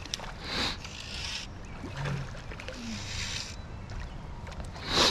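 Water splashing and sloshing in a few short surges as a hooked rainbow trout is brought to hand in a cold stream, over a steady rush of flowing water.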